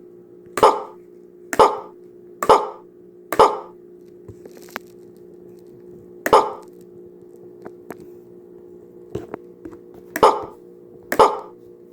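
Novelty sound-effect cup playing a short recorded dog bark each time it is hit: seven barks, four about a second apart, then one alone, then two more near the end, with small clicks between them. A steady hum runs underneath.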